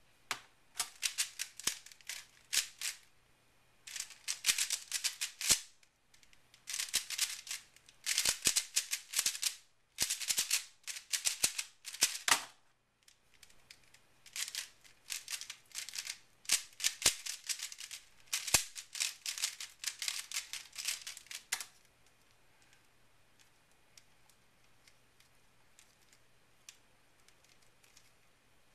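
A 3x3 speedcube, an Aolong v2, being turned very fast by hand: rapid plastic clicking and clattering of the layers in bursts of a second or two with brief pauses, stopping about 22 seconds in.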